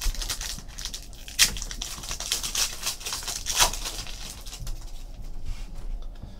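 Trading cards being handled and flipped through by hand: a run of quick light clicks and rustles, with two sharper snaps about a second and a half and three and a half seconds in.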